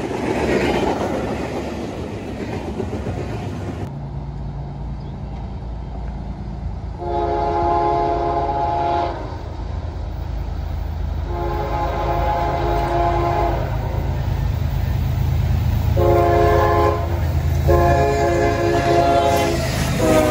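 A double-stack intermodal train rolling past for the first few seconds. Then a Norfolk Southern GE ES44DC diesel locomotive approaches with its engine rumbling and sounds its air horn: two long blasts, a short one and a long one, the grade-crossing signal, with another blast starting near the end.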